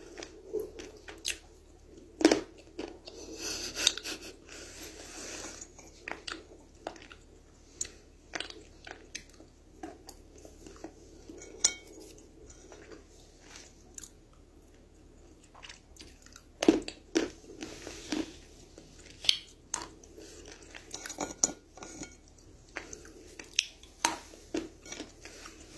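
A person biting and chewing pieces of dry edible clay (Turkestan clay tiles) close to the microphone, with irregular sharp crunches between softer chewing as the clay turns to paste in the mouth.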